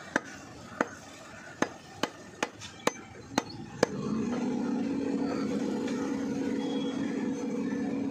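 Heavy curved butcher's cleaver chopping mutton on a wooden log block: about eight sharp chops over the first four seconds. Then a long steady horn blast starts about four seconds in and is still sounding at the end.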